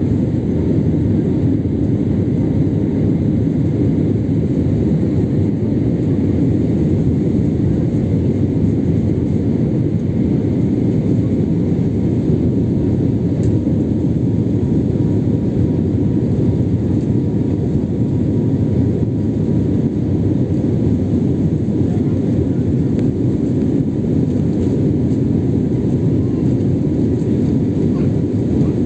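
Steady engine and airflow noise heard inside a passenger airliner's cabin while it climbs after takeoff: a dense, unchanging low rumble with faint steady high tones over it.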